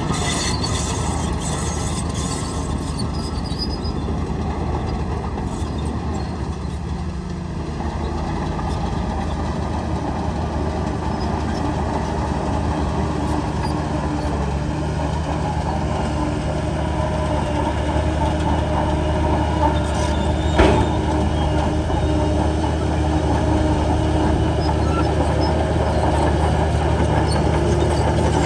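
Shantui DH17 bulldozer's diesel engine running steadily, picking up a little about eight seconds in, with one sharp knock about two-thirds of the way through.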